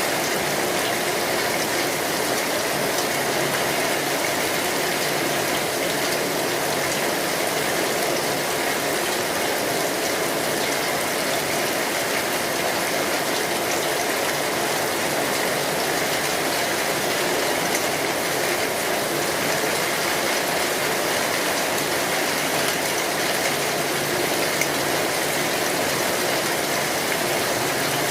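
Steady heavy rain drumming on a metal roof, a continuous even hiss with no let-up.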